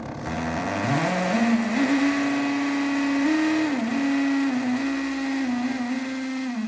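Hammer drill set to plain drill mode, spinning up and boring into porcelain tile with a tile-and-glass bit. It rises in pitch over the first second or so, then runs steadily with small dips in pitch as the bit bears on the tile.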